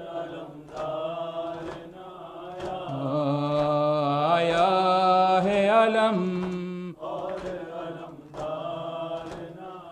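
A man chanting an Urdu noha in long, drawn-out, wavering notes, loudest about halfway through. Sharp chest-beating slaps (maatam) keep time roughly once a second.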